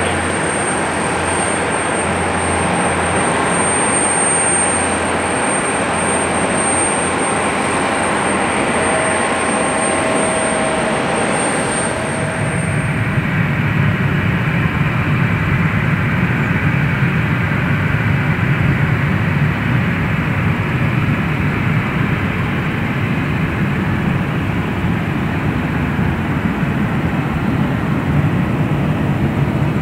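Turbofan engines of taxiing airliners at taxi power. First a JAL Embraer E170 with a steady high whine over its jet noise; then, after a cut about twelve seconds in, a Boeing 737-800 with a lower, heavier jet noise and no whine.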